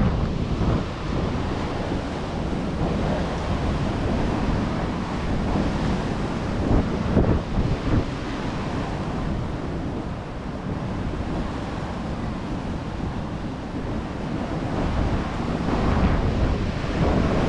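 Wind buffeting the microphone over the steady wash of ocean surf breaking on a sandstone rock shore.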